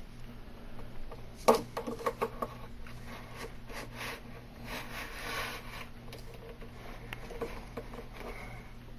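Plastic edge banding being trimmed by hand. A sharp click about a second and a half in is followed by a quick run of clicks and scrapes, then quieter, intermittent scraping.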